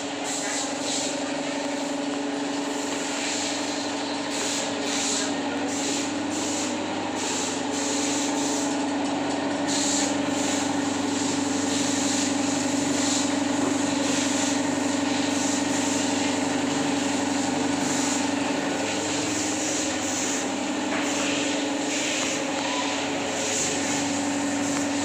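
A steady machine hum, one constant low tone, over an even hiss.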